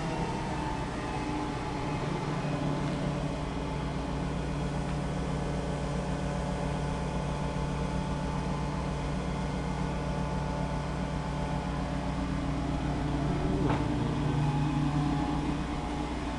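Large forklift's engine running steadily while the truck drives with a heavy load raised, growing a little louder near the end.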